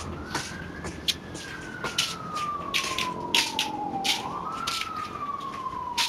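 Emergency vehicle siren wailing: its pitch slides up for about a second, falls slowly for about three seconds, then rises again near the end and starts falling. A scatter of sharp, short hits sounds over it.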